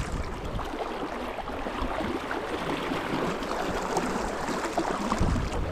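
River water flowing and babbling, an even rushing noise, with a brief low thump at the start and another about five seconds in.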